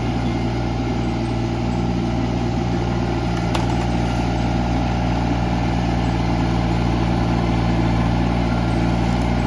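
Skid steer's diesel engine running steadily under load while the machine pulls a branch off a tree, its level rising slightly about three and a half seconds in.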